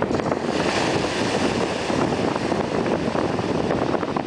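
Strong wind rushing and buffeting against the microphone, a dense noise that rises and falls in gusts.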